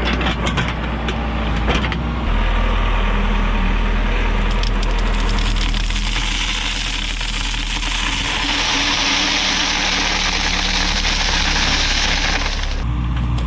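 Backhoe's diesel engine running steadily. From about five seconds in, a loud rushing hiss builds over it and cuts off suddenly near the end.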